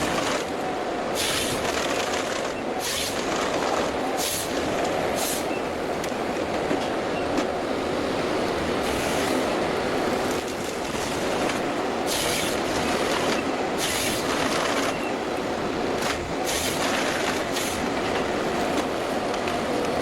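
Heavy forestry machine running steadily, with brief rushing noises every second or two.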